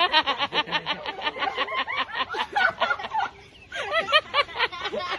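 Rapid high-pitched giggling laughter, a quick string of short 'ha' syllables that breaks off briefly about three and a half seconds in and then starts again.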